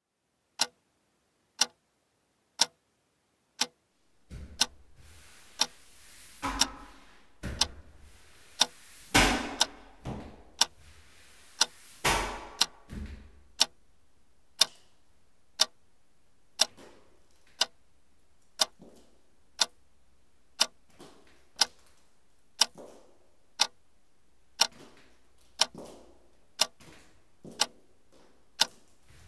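Sharp, clock-like ticks about once a second. From about four seconds in a low hum sits under them, with several louder noisy swells between about six and thirteen seconds.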